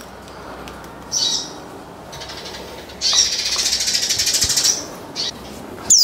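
A small caged songbird singing: a short high chirp, then a fast, dense trill lasting nearly two seconds, and a sharp whistle sliding downward at the end.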